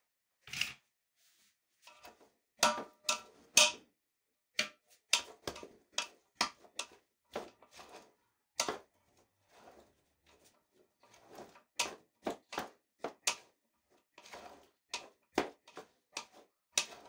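Metal spoon knocking and scraping against a large aluminium pot, stirring cut moringa roots as they fry in mustard oil. The knocks come irregularly, several a second at times, and a few ring briefly like struck metal.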